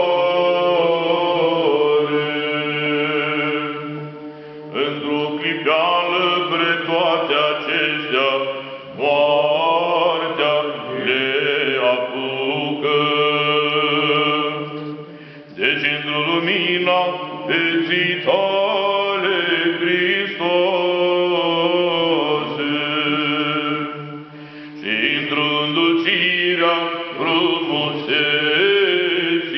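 Male Orthodox clergy chanting the funeral service in Romanian, in long sustained phrases with short breaks between them.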